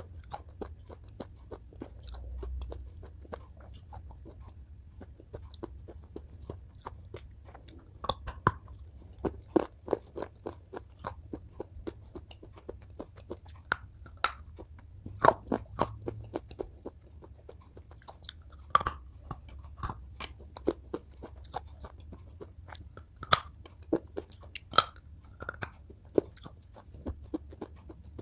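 A person biting and chewing something crunchy: irregular sharp crunches, sparse at first and coming thicker and louder from about a third of the way in, over a low steady hum.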